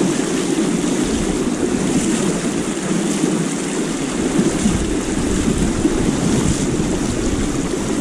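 Shallow rocky river rushing steadily over stones, a continuous loud water noise. A deep rumble of wind on the microphone joins in about a second in.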